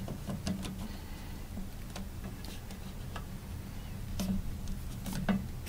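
Scattered small clicks and taps as hands work a rubber gasket up the black plastic tailpiece of a push-to-seal basin drain under a sink, over a steady low hum.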